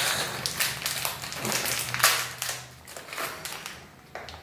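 Crinkly sweet wrapper rustling and crackling as it is worked open by hand and the sweet pulled out, loudest about two seconds in and dying away near the end.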